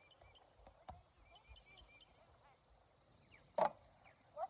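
Small birds chirping over and over in the background, with one sharp crack about three and a half seconds in.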